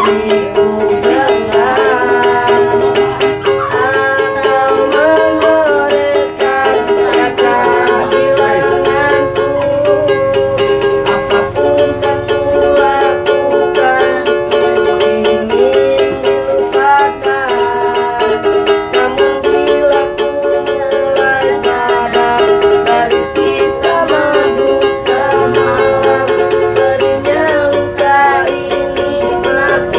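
Ukulele strummed in a steady rhythm, accompanying a singing voice.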